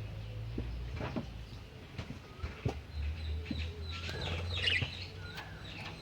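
Budgerigars chirping and warbling: scattered short chirps at first, then busier chatter in the second half, over a steady low hum.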